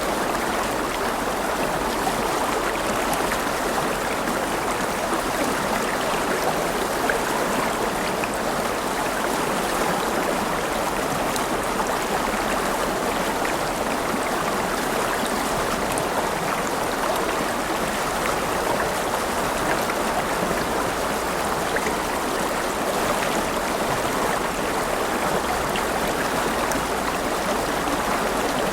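A river's water flowing, a steady, unbroken rush.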